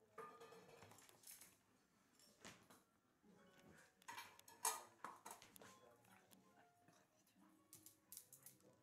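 Near silence: a quiet room with scattered faint clicks and light taps, the sharpest a little under five seconds in.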